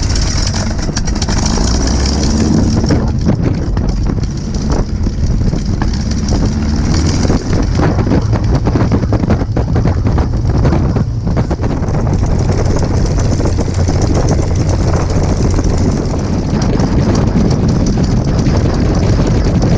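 Packard Merlin V12 engine of a P-51D Mustang starting as the propeller turns over, then running steadily at low power, heard from the open cockpit.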